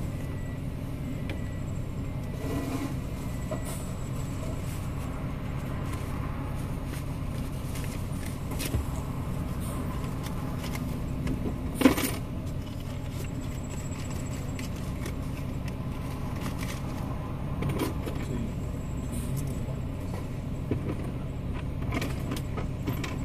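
Car engine idling steadily, heard from inside the cabin. Scattered small clicks and jingles sit over it, with one sharper click about halfway through.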